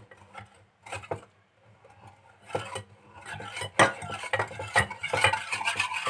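Wire whisk stirring a thin cornstarch-and-water mixture in a saucepan, its wires clinking and scraping against the pan. A few light taps in the first second or so, then quicker, continuous whisking from about halfway.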